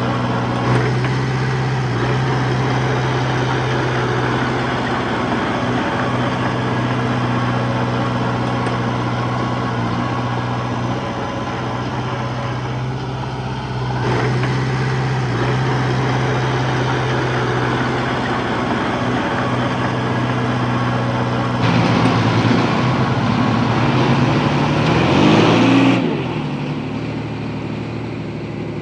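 Heavy diesel engine of earthmoving machinery running steadily. About 22 seconds in it revs up, rising in pitch and getting louder for some four seconds. It then drops back abruptly to a lower, quieter running note near the end.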